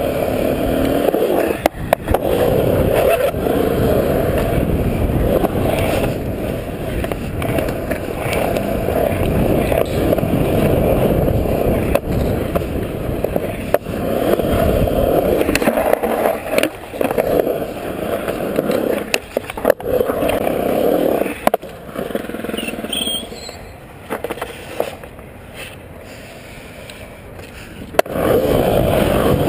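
Skateboard wheels rolling over smooth concrete, a loud steady rolling rumble with a few sharp clacks along the way. It drops quieter for several seconds near the end, then comes back louder.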